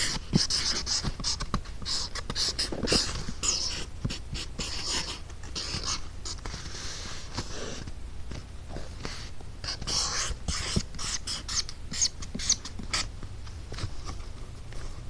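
Pen tip scratching across paper in many short, irregular strokes as letters are written by hand.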